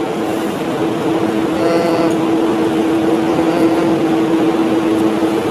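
A steady motor drone: one constant tone over a noisy rumble, growing a little louder.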